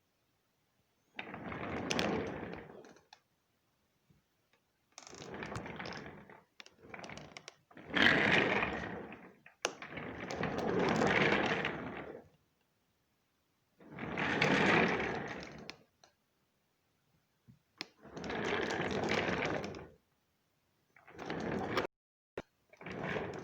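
Office chair castors rolling across a floor in a series of separate pushes, each roll a rumbling, rattling sound of one to two seconds with short silent pauses between them. A couple of sharp clicks come near the end.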